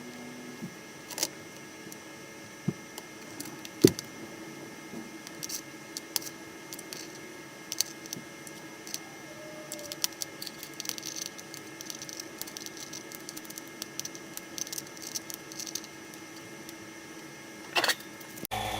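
Scattered clicks and taps of something being handled, with one sharp knock about four seconds in and a run of quick light ticks in the middle, over a steady faint hum.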